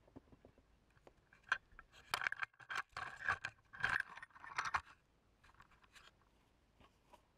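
A run of short scrapes and rubs, from about a second and a half in for some three seconds, then a few fainter ones: handling noise as the camera is picked up and repositioned by gloved hands.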